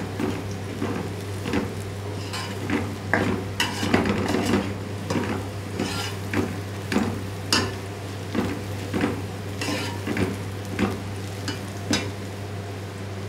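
A slotted metal spatula scrapes and stirs sliced onions frying in oil in an aluminium pot, about one scrape stroke every half-second to second, over a faint sizzle. The onions are being browned toward golden. The stirring stops about a second before the end.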